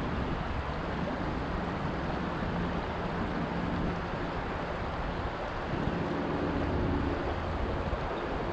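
Shallow river water rushing over rocks, a steady noise with wind buffeting the microphone. A faint low hum runs under it through the middle and later part.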